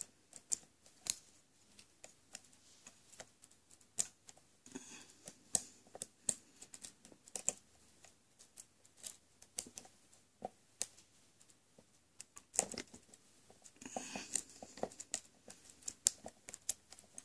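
Light metallic clicks and ticks of a hook pick and tension wrench working the pins inside a 60 mm Ace padlock, coming irregularly, with a denser patch of clicking and rubbing near the end.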